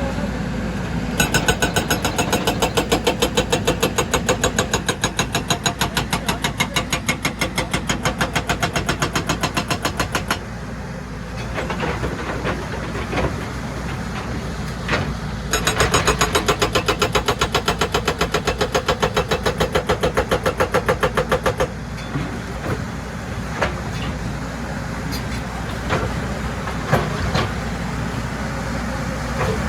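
Excavator engine running while a hydraulic rock breaker hammers rock in two long spells of rapid, even blows, the first about nine seconds long and the second about six, with a few single knocks of rock near the end.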